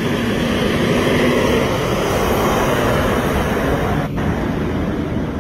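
Red fire engine's diesel engine running as it drives past close by, a steady loud rumble with tyre noise that is loudest about a second in and then eases as it moves away.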